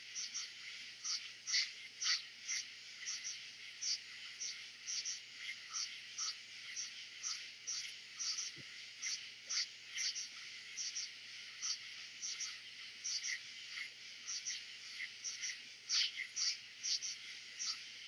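Dense night chorus of katydids and crickets: a steady high-pitched hiss with short, loud pulses standing out from it two or three times a second, unevenly spaced.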